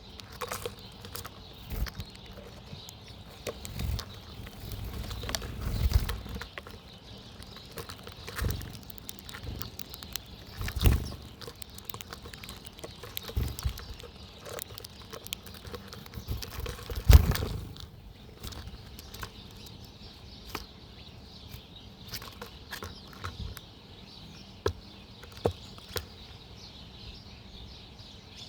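Small wild birds at a backyard feeder: wings flutter in short bursts as birds come and go, with scattered chirps and small clicks. The loudest flurry of wingbeats comes a little past the middle.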